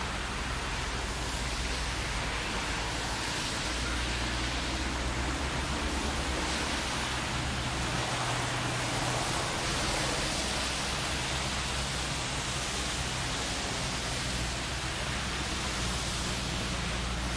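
Steady hiss over the low drone of a demolition excavator's diesel engine, the drone rising and falling in level a few times; no crashes of debris are heard.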